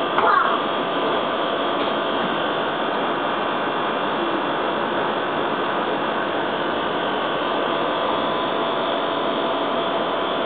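A steady machine hum with hiss, several steady tones held over an even noise, unchanging in level.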